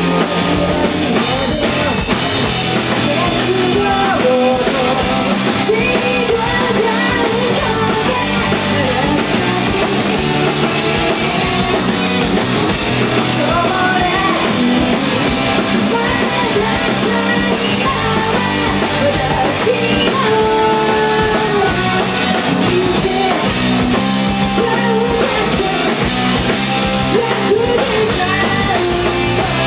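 A punk rock band playing live: electric guitars and a drum kit, with a lead singer singing over them.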